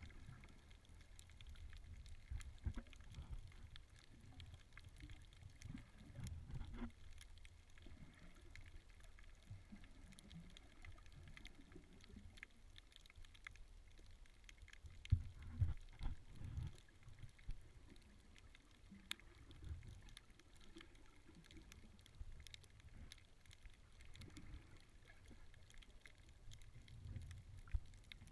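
Muffled underwater sound picked up by a submerged camera: a low, uneven rumble of moving water with irregular thumps, strongest about halfway through, and faint scattered clicks throughout.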